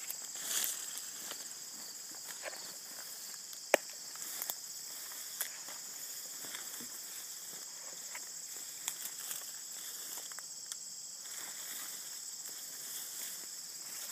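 Footsteps and brush rustling as someone pushes through dry grass and saplings, over a steady high-pitched insect chorus. A single sharp click stands out about four seconds in.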